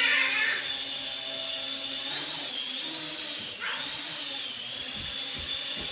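Small toy quadcopter drone's electric motors and propellers whining, the pitch rising and dipping as the throttle changes, with a sharp upward sweep about three and a half seconds in.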